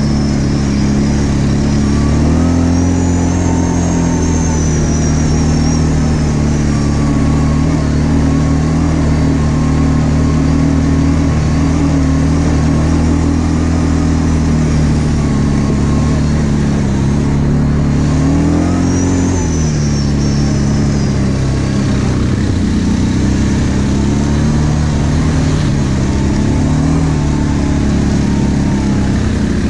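ATV engine running under load as the quad drives along a dirt track. Its pitch rises and falls with the throttle several times, with a faint high whine at times.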